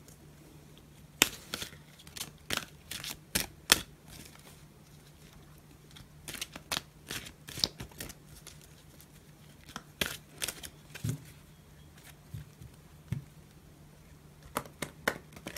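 Romance Angels oracle cards being shuffled by hand: irregular clusters of sharp card snaps and clicks, with pauses between them, over a faint steady low hum.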